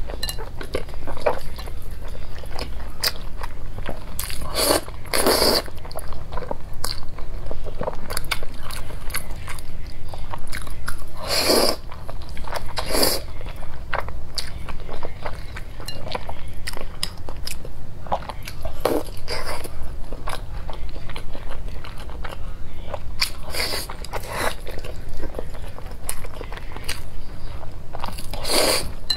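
Close-miked eating of jajangmyeon, thick wheat noodles in black bean sauce: chewing with wet mouth clicks. Every few seconds there is a louder slurp as a mouthful of noodles is sucked in.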